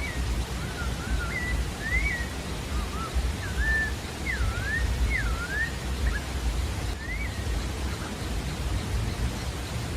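Pale-breasted thrush (sabiá-da-várzea) singing: a phrase of short clear whistled notes that slide up and down, then a single note a little later. A steady low rumble and hiss runs underneath.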